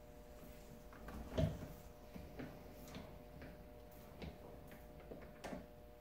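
Scattered faint clicks and knocks, the loudest about a second and a half in and another near the end, from the steel carabiners and S-type load cell of a bow scale shifting and clinking as a bow is drawn and let down, over a faint steady hum.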